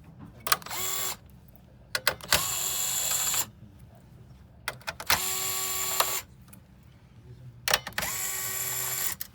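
Small electric screwdriver backing out screws, running in four bursts of about a second each, with sharp clicks as the bit seats before each run.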